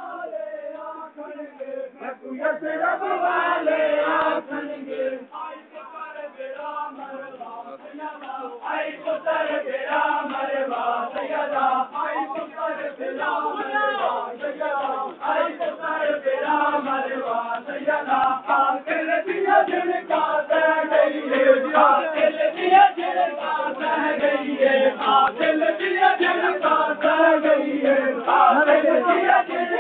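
A crowd of male mourners chanting a noha together in a mourning lament, with sharp chest-beating (matam) slaps over the singing. The chanting grows louder about eight seconds in.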